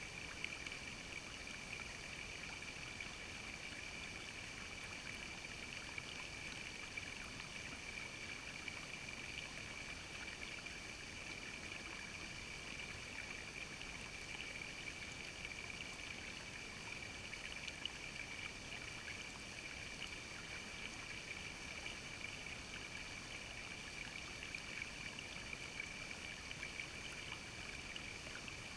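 Shallow creek water trickling and lapping over rock ledges close by, a steady babble with small splashy ticks, under a faint steady high-pitched tone.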